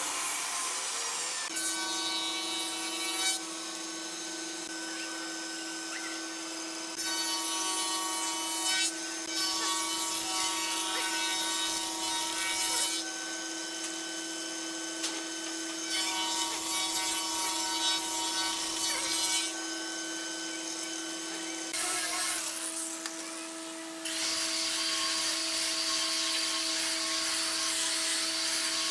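Woodworking power machines working a hardwood panel: a steady motor hum with the hiss of wood being cut, changing abruptly every few seconds. For the last few seconds a hand-held electric sander runs on the panel.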